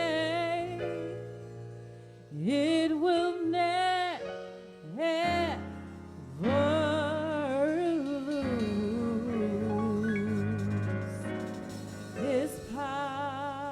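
Gospel singing: one voice with wide vibrato, sliding up into long held notes with short breaks between phrases, over held keyboard chords.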